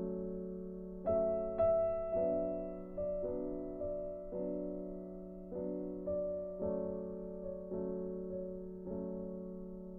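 Slow, gentle background piano music: single notes start crisply, then ring and fade, a new one about every second.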